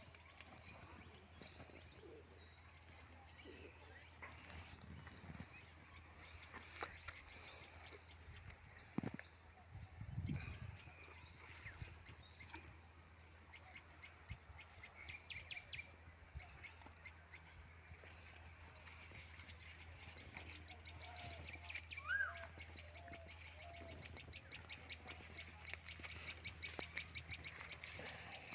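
Birds chirping and calling faintly outdoors, with a steady high-pitched whine underneath. A couple of dull thumps come about a third of the way in, and a fast run of repeated chirps starts near the end.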